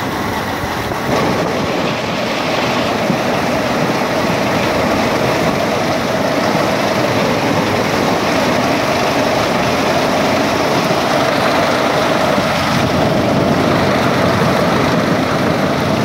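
Tractor-drawn pumpkin seed harvester running steadily as its spiked pick-up drum and roller conveyor lift pumpkins, an even mechanical noise that gets a little louder about a second in.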